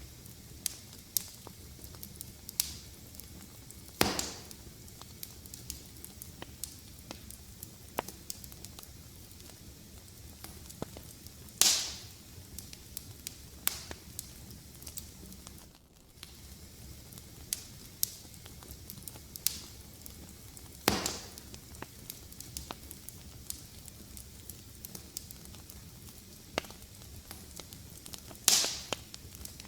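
Fire in a fireplace crackling over a steady low rumble, with constant small snaps and four louder pops spread through it, roughly every seven to ten seconds.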